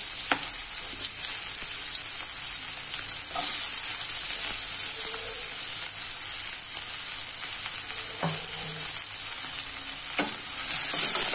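Chopped onion sizzling steadily as it fries in hot oil in a kadai with bay leaves, dried chilli and whole garam masala. A spatula stirs it, with a few sharp taps against the pan.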